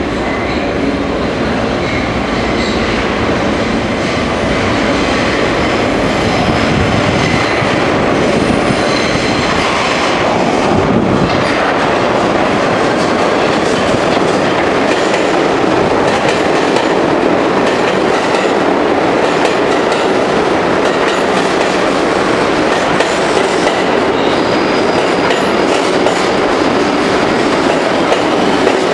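New York City Subway R62 train arriving at a station: steady wheel-on-rail running noise as it comes out of the tunnel and its cars run along the platform, getting a little louder once it reaches the platform.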